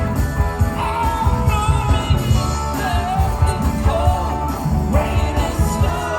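Rock band playing with a lead vocal singing a sustained, wavering melody over a steady beat.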